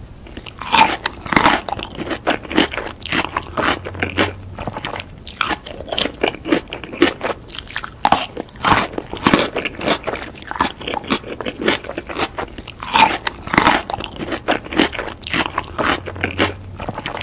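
Close-miked eating sounds: a person biting and chewing crunchy food, with many sharp, irregular crisp crunches starting about a second in and coming in denser clusters now and then.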